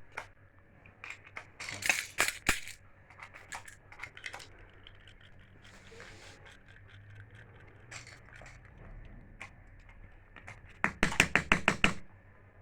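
Small plastic and metal parts of electric-iron connectors clicking and clattering as they are handled and fitted by hand. Scattered clicks, a cluster about two seconds in, and a quick run of about eight sharp clicks near the end.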